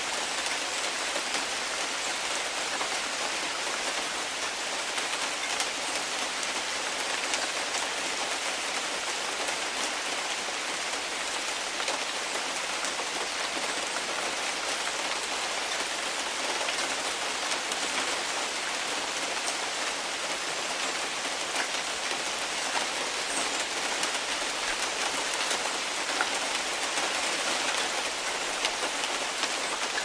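Steady rain falling on jungle foliage: an even hiss with scattered sharper drop taps on the leaves.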